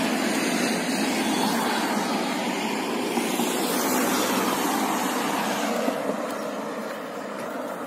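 City street traffic: a steady rush of passing vehicle noise that eases off a little after about six seconds.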